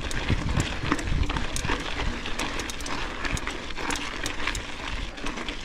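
Mountain bike climbing a rocky dirt trail: the tyres crunch over gravel and the bike clicks and rattles on the rough ground, while the rider breathes hard on the climb.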